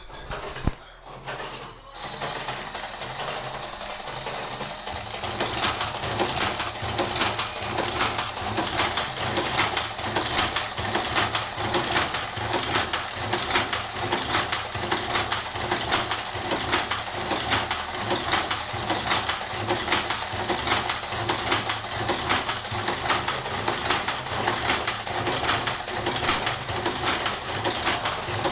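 Karaşimşek tobacco machine starting up about two seconds in and running with a fast, even mechanical clatter, getting louder around five seconds in.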